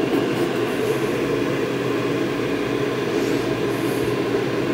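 A steady mechanical hum from a running machine, at an even level.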